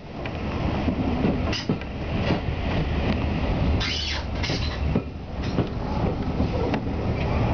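Steam-hauled passenger train running along the line, heard from inside a carriage: a steady rumble of wheels on rail, with a couple of brief sharper bursts about four seconds in.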